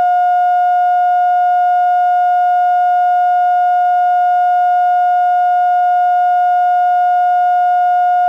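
Loud, steady line-up test tone accompanying videotape colour bars: a single unwavering pitch with faint overtones, the reference tone used to set audio levels at the head of a recorded segment.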